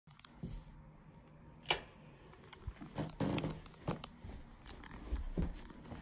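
Scattered clicks and soft knocks of handling and movement, with a sharp click early on and a few dull thumps near the end; no motor running.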